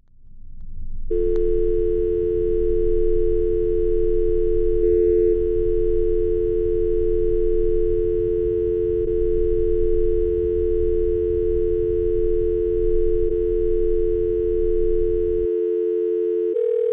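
A low rumble fades in, and about a second in a steady telephone dial tone starts, two notes held together without a break. The rumble drops out near the end and the tone changes to a single note.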